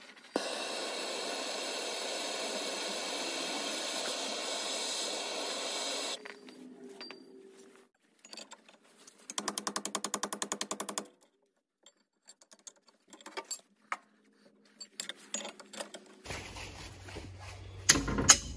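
Handheld gas torch hissing steadily for about six seconds as it heats a rusted-on rubber shock absorber bushing on its lower mounting stud. Then a couple of seconds of rapid, even ticking, scattered tool clicks, and a sharp metallic clack near the end.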